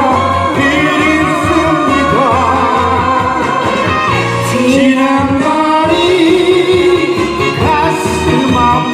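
Korean trot song playing over a backing track: a wavering lead melody line over a steady bass beat.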